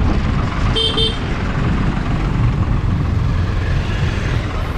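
Moving motorcycle with wind rumbling on a helmet-mounted microphone, and a short vehicle horn toot about a second in.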